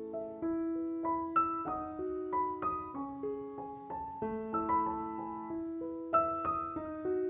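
Background music: a gentle piano melody, notes struck one after another with chords beneath.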